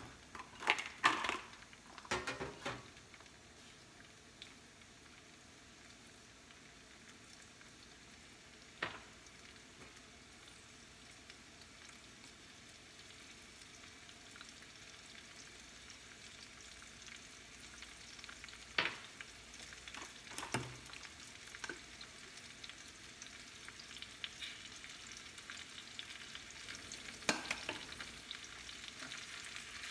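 Sliced bell peppers and mushrooms sizzling in olive oil in a skillet, the sizzle slowly growing louder. A spatula stirs and clacks against the pan in short bursts: several near the start, once about a third of the way in, twice about two-thirds in, and again near the end.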